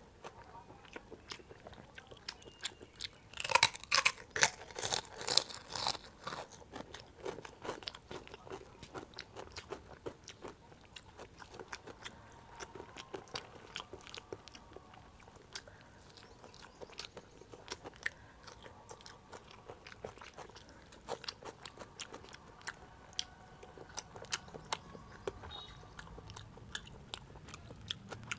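Close-miked eating by hand: wet chewing and mouth clicks as rice and curry are eaten, with a run of loud crunching bites about three to six seconds in.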